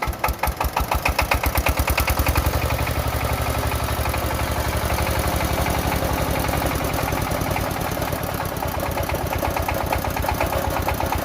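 Engine of a soil-test boring machine starting up. Its firing rhythm builds over the first two seconds, then it runs steadily.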